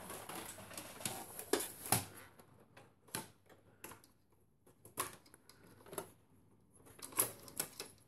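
Irregular clicks and knocks from a desktop computer's steel case and plastic cable connectors being handled while power supply cables are worked loose, with a few louder knocks scattered through.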